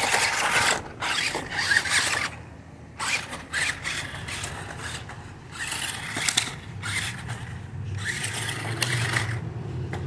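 Toy Monster Jam Megalodon Storm RC monster truck's electric drive motors and plastic gears whirring in repeated bursts as it is driven over grass, starting and stopping several times.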